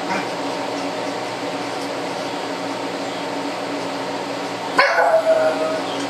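Pug lets out one loud, drawn-out bark about five seconds in, over the steady hum of a kitchen exhaust fan.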